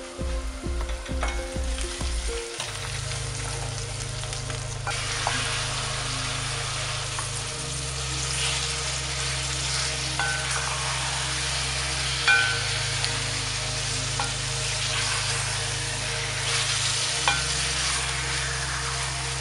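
Onions and chunks of meat sizzling in hot oil in a kazan while a wooden spoon stirs them, with a few light clinks of the spoon against the metal pot. The sizzle grows louder about five seconds in.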